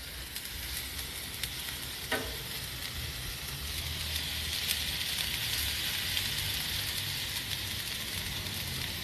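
Oiled sliced bell peppers, onions and steak strips sizzling steadily on a flat-top griddle plate over a gas grill, growing a little louder about four seconds in. A metal spatula scrapes and turns them, with small ticks and one short clack about two seconds in.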